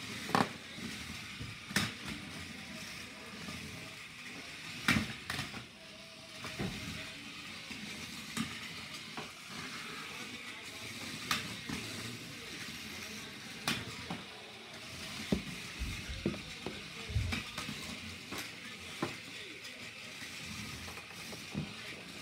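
Small electric motors of remote-controlled HEXBUG BattleBots toy robots, Bite Force and Blacksmith, whirring as they drive around a plastic arena. Repeated sharp plastic clicks and knocks come at irregular intervals as the robots collide.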